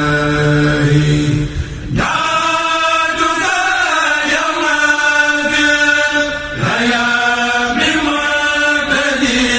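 A Mouride kourel, a group of men, chanting a khassida in unison in long held notes, with new phrases starting about two seconds in and again near seven seconds.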